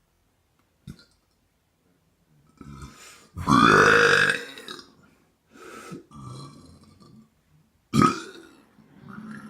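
A person burping over and over: one long, loud burp about three and a half seconds in that lasts about a second, a sharp loud one about eight seconds in, and several shorter, quieter burps between them.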